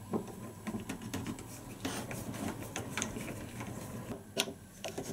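Screwdriver turning a slotted screw in a doorknob's metal rose plate: light scraping and a run of small irregular clicks, with one louder click about four seconds in.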